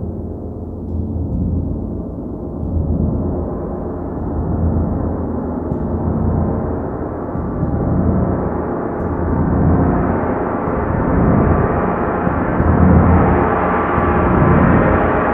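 40-inch hand-hammered stainless steel gong, close in character to a wind (Fen) gong, played with a hard mallet. Repeated strokes keep up a rich, shimmering wash that swells every second or two and grows steadily louder and brighter.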